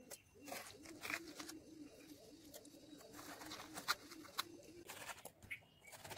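A dove cooing in a quick run of low, evenly repeated notes that stops about four seconds in. Over it, a spoon scrapes and clicks as watermelon flesh is scooped out and dropped into a steel mixer jar.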